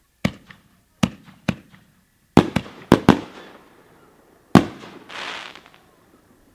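Aerial firework shells bursting: sharp reports, three spaced ones in the first two seconds, a quick run of four in the middle, and one more a little later, followed by a short rushing hiss.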